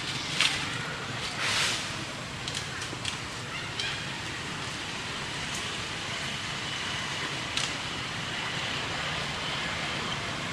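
Steady outdoor background noise with two brief rustles in the first two seconds, a few faint clicks after, and a faint thin high tone through the middle.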